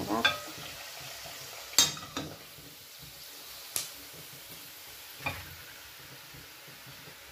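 Pork chops deep-frying in a pot of oil, a steady sizzle, with five sharp clinks of metal tongs against the pot and plate as the pieces are lifted out, the loudest a little under two seconds in.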